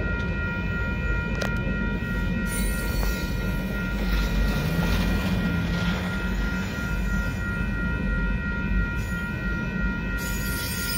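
Union Pacific freight cars rolling by at speed over a grade crossing: a steady low rumble and rattle of wheels on rail, with hissing patches of wheel noise a couple of seconds in and near the end. Steady high ringing tones run throughout, from the crossing's warning bell.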